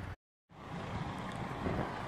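Heavy diesel lorry engine running steadily, with wind buffeting the microphone. A brief gap of silence falls near the start, then the engine and wind noise carry on.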